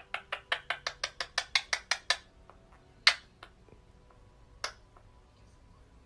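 Ringneck parakeet's beak clicking as it nibbles at another parakeet's head: a quick run of sharp clicks, about six a second, for two seconds, then two single clicks.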